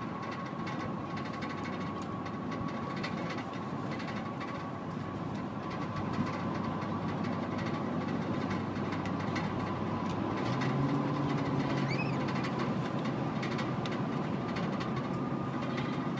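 Steady machine running noise with a constant high whine, and a short rising squeak about twelve seconds in.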